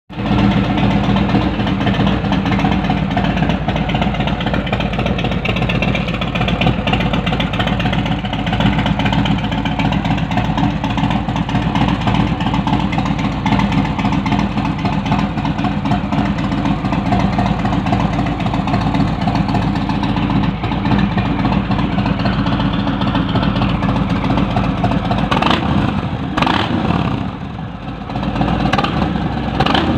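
Harley-Davidson Sport Glide's Milwaukee-Eight 107 V-twin idling steadily through TAB Performance slip-on mufflers.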